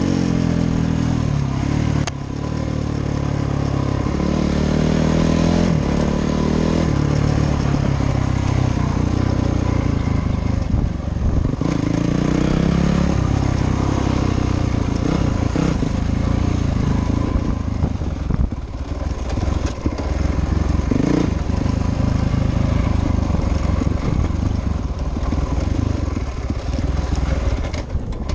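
Dirt bike engine under way, revving up and easing off so its pitch rises and falls over and over in the first several seconds, then running on with a rougher, busier sound.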